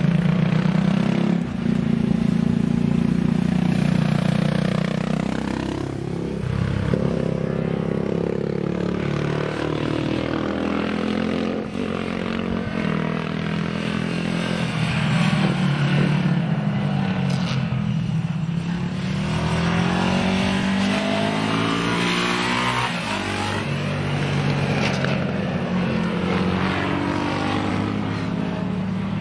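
Yamaha SRX250 single-cylinder four-stroke motorcycle engine revving under load on track, its pitch climbing through the gears and dropping off again several times as the bike accelerates and slows for corners.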